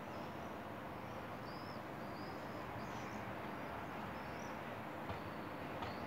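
Outdoor ambience: a steady background hum with small birds chirping, several short rising-and-falling whistles scattered through, and a couple of faint clicks near the end.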